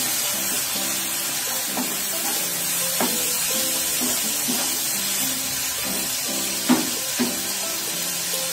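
Sliced onions and peppers sizzling in hot oil in a pan while a spatula stirs them, with a few sharp knocks of the spatula against the pan.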